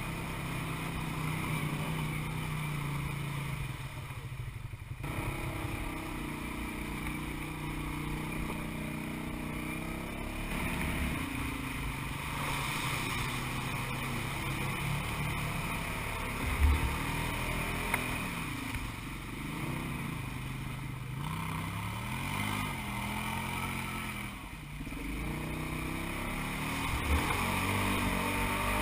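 Side-by-side UTV engine running as it drives, first wading through a creek with water rushing past, then along a muddy trail, its pitch rising and falling with the throttle. Two short sharp thumps, a little past halfway and near the end.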